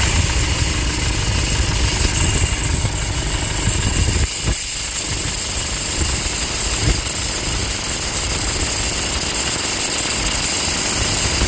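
Toyota Hilux 2.5 diesel engine idling just after starting, with a steady high scraping hiss from the accessory belt drive. Everything points to the alternator, its pulley, as the source, with a bearing noise in the background.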